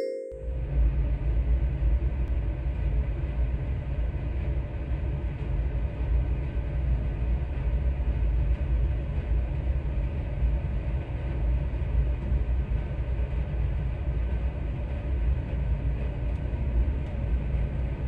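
Steady low rumble and rushing noise on the deck of the moving Silja Symphony cruise ferry, with wind buffeting the microphone.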